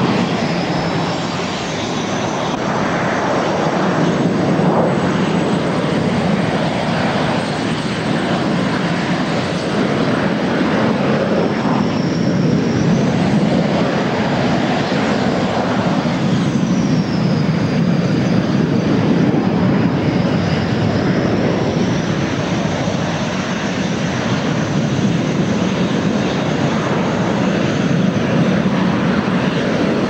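Several Canadair CT-114 Tutor jets taxiing, their single turbojet engines running with a loud steady rush and a high whine that slides down and back up in pitch a few times.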